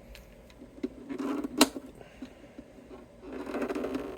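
Small guitar parts being handled during disassembly: scraping and rattling in two short stretches, with one sharp click about a second and a half in.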